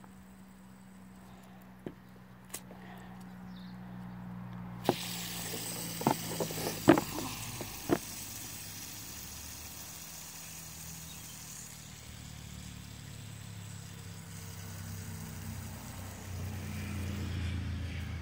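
A fidget spinner being flicked and handled while it spins: sharp clicks of fingers on the spinner, bunched between about six and eight seconds in. Under them there is a steady low hum, and a rushing noise sets in about five seconds in.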